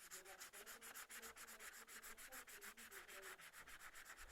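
Faint, rapid back-and-forth scribbling of a colouring tool on paper as an area is filled in, about nine or ten strokes a second.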